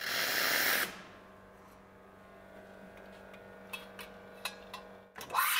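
Espresso machine steam wand: a short blast of steam hissing as the wand is purged, then the machine's steady hum with a few light clicks. Near the end the wand opens into the milk with a rising whine that settles into the hiss of milk steaming.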